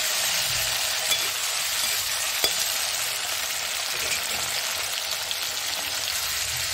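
Tomatoes and browned onions sizzling in hot oil in a metal kadhai, frying down for a masala base. A metal spatula scrapes and taps the pan a couple of times in the first few seconds, then the sizzling goes on steadily.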